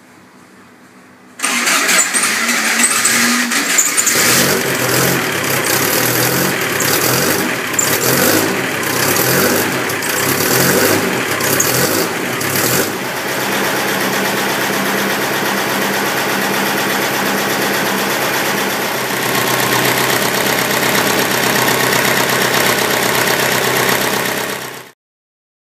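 Air-cooled VW Beetle flat-four, freshly fitted with new cylinder heads and breathing through open velocity-stack carburettors, starting up. It catches about a second and a half in and runs with repeated blips of the throttle for several seconds. It then settles to steady running until it cuts off abruptly near the end.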